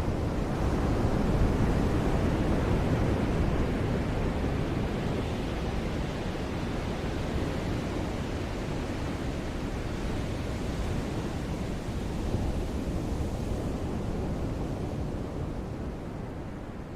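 Ocean surf washing onto a beach: a continuous rush of waves, loudest at first and slowly dying down toward the end.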